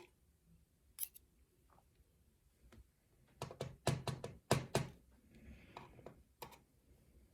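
Small sharp clicks and taps of tiny lock pins and tools being handled on a work surface while a gutted pin-tumbler lock's pins are sorted, with a quick run of several clicks in the middle.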